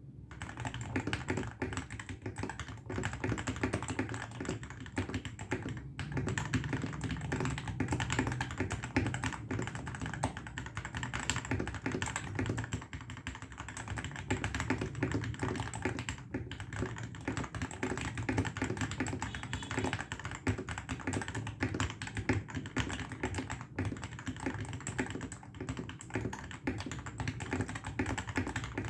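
Royal Kludge RK84 mechanical keyboard typed on quickly and continuously, a dense run of key clacks. It has lubed RK red switches and is modded with three layers of tape and polyfill inside, resting directly on a wooden table with no desk mat.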